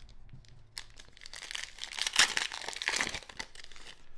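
Foil wrapper of a Panini Classics football card pack being torn open and crinkled, loudest about two seconds in.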